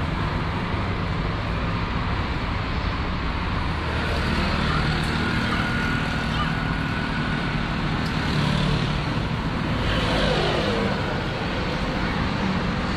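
Steady road traffic noise: motor vehicles running and passing close by, with a falling tone about ten seconds in.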